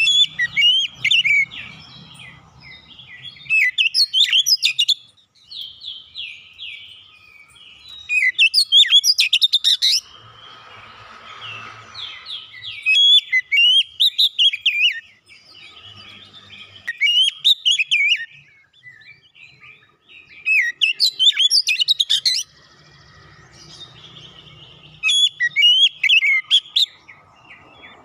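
Oriental magpie-robin singing in loud, rapid phrases of varied high whistled notes and glides, a new phrase every three to four seconds with softer song between.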